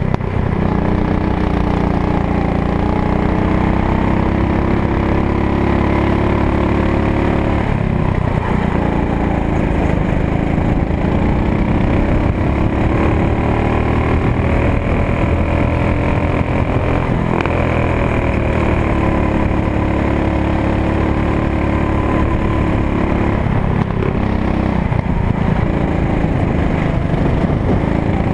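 Go-kart engine heard from the driver's seat, running hard through laps, its pitch rising and falling again and again as the throttle is opened and eased.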